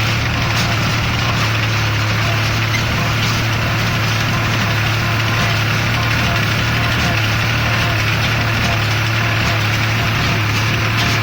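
Welger AP45 small square baler running behind its tractor. The engine holds a steady hum, with the baler's clatter mixed in and no change in pace.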